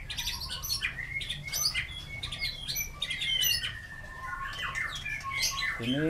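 White-rumped shamas calling and singing. A busy, varied run of chirps, rapid trills and whistles, with one whistle held level for a couple of seconds midway.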